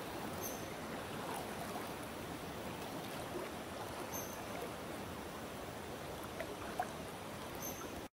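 Steady rush of flowing river water, with three brief, faint high chirps over it.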